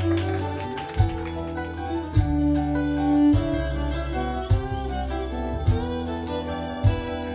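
Live band playing an instrumental passage: nylon-string acoustic guitar, violin and keyboard over low held bass notes, with a sharp percussive hit about once a second.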